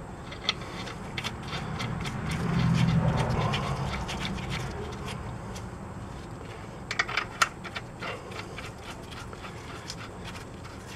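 Nuts being put on by hand onto the steel strut bolts at the front wheel hub: light metallic clicks and scrapes, with a cluster of clicks past the middle. A low rumble swells and fades a couple of seconds in.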